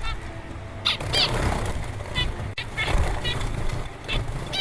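Parrot giving a string of short, sharp calls, about eight spread over a few seconds, over a steady low rumble.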